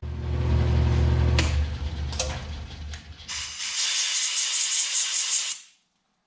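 A low, steady hum with a couple of clicks, then a compressed-air blow gun hissing for about two seconds as it clears chips from a milling-machine vise. The hiss cuts off abruptly.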